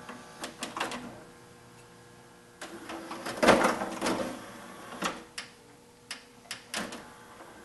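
Sony five-disc CD changer's tray and carousel mechanism working: a small motor runs with a whir from about two and a half seconds in, louder for a moment, followed by a string of sharp mechanical clicks as the tray comes out. A few handling clicks from the disc and tray come in the first second.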